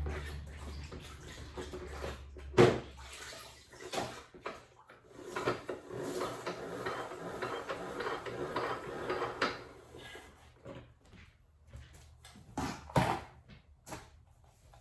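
Spin mop and plastic bucket in use: water swishing and sloshing for several seconds in the middle, with a few sharp knocks of plastic parts before and after.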